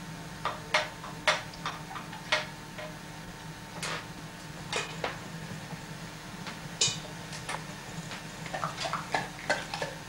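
Scattered sharp clinks and knocks of a cockatoo's beak and feet on kitchen pots and utensils as it picks spaghetti out of a pot, over a steady low hum.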